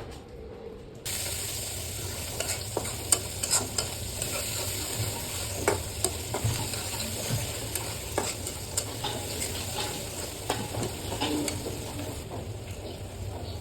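Food frying in hot oil in a pan: a steady sizzle that starts abruptly about a second in, with scattered clicks and scrapes of a spatula stirring.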